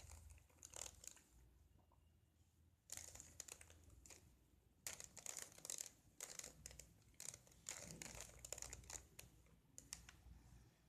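Plastic Rubik's cube being twisted by hand: irregular quick bursts of clicking and scraping as its layers turn, starting about three seconds in.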